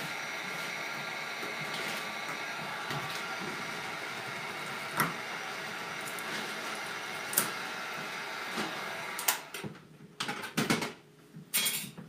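Electric heat gun running steadily with its fan whirring while it heats a refrigerator's emblem sticker to soften the adhesive, with a couple of light clicks along the way. It is switched off about nine seconds in, followed by a few short handling sounds as the emblem is pried loose.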